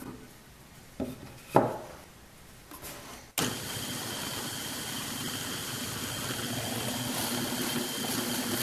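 A couple of light knocks as the wooden block is positioned, then the drill press motor starts suddenly and runs steadily with a high whine as a Forstner bit bores a deep 3/4-inch hole into the block, throwing out wood chips.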